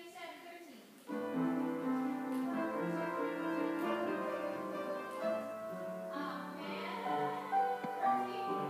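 Waltz music with piano starts suddenly about a second in and plays steadily, with some singing over it.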